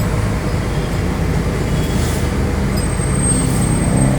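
Heavy diesel engine running steadily at low revs with a deep hum, getting a little louder near the end.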